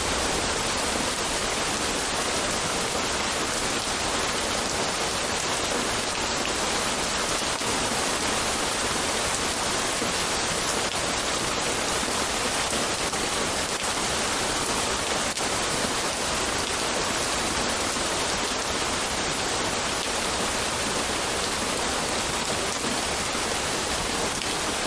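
Steady rain falling, an even, unbroken hiss of dense drops.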